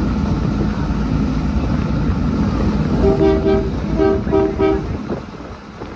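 A vehicle horn tooting quickly, in a group of two short toots about three seconds in and a group of three about a second later, over a heavy vehicle engine running that fades near the end.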